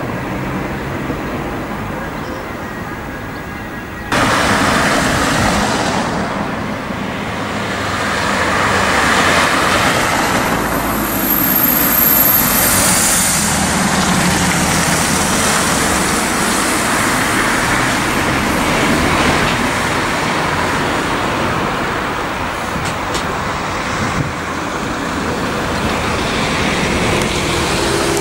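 Road traffic with a Fiat Ducato ambulance driving past close by, its engine and tyres loudest about ten to fourteen seconds in. No siren sounds: it is running on lights only.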